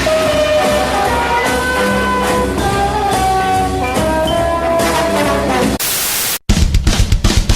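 Music with held melodic notes over a steady beat, cut off about six seconds in by half a second of static hiss and a brief silence. Then loud rock music with a fast pounding beat starts.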